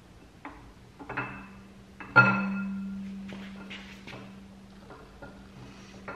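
Metal knocks and clanks as a camshaft is worked out of a 4.8 V8 engine block on a stand. One hard knock about two seconds in leaves a ringing metallic tone that dies away slowly.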